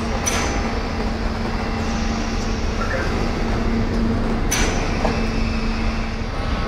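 NOHAB MY diesel locomotive running steadily with a low rumble and constant hum while it shunts a freight train over the harbour rails. Two short, sharp metallic clanks come through, one just after the start and one about four and a half seconds in.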